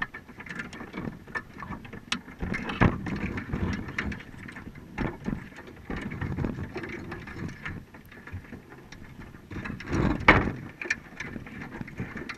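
Muffled underwater knocks, clicks and low rumbling picked up through a GoPro's waterproof housing on the floor of a submerged crab trap. The stronger knocks come about three seconds in and again near ten seconds.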